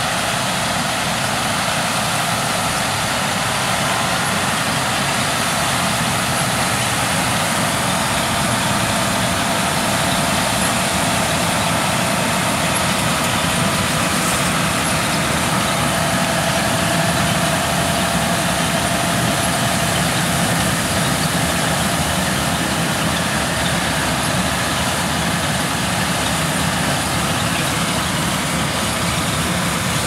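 John Deere 6230R tractor engine and a trailed Grimme SE 75-55 harvester's machinery running steadily under load while lifting onions.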